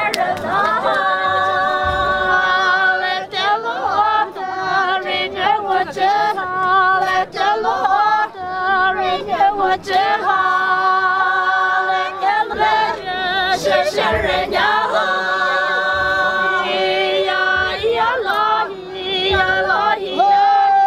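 A group of women singing together unaccompanied in long held notes, stepping from pitch to pitch in a traditional folk song.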